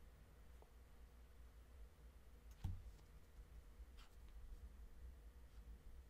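Near silence: room tone with a steady low hum, broken by a single sharp computer click about two and a half seconds in and a fainter click around four seconds.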